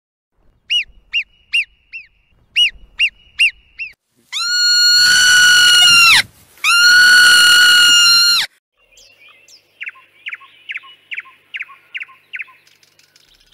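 Bird calls: two quick groups of four short chirps, then two long, steady, high honking calls of about two seconds each, then a run of about seven short chirps near the end.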